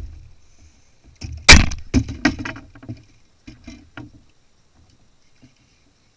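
Gear knocking and clattering against the hull of a Hobie Pro Angler fishing kayak: one loud sharp knock about a second and a half in, then a quick run of smaller knocks and rattles over the next two and a half seconds.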